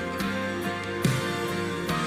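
Instrumental passage of a worship song: sustained chords with strummed guitar strokes about twice a second, and one sharper, louder hit about a second in.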